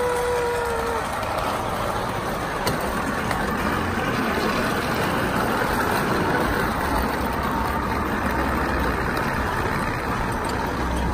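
Steady rolling rumble of an improvised wooden rail trolley running along steel railway tracks, with a short steady tone in the first second.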